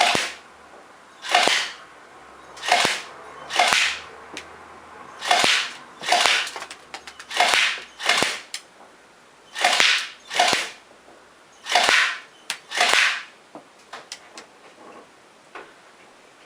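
BlackViper M92F electric airsoft pistol firing about a dozen shots, mostly in pairs about a second apart, each a short snapping crack, with a few fainter sharp ticks in between and after the last shot.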